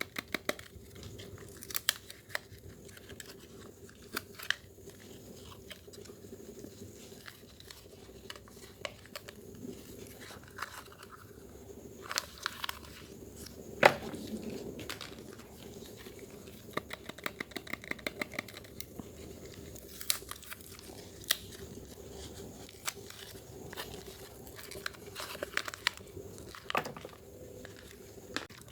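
Bar of Dermythol soap being lathered in the hands: irregular crackling clicks all through, with one sharper snap about halfway through.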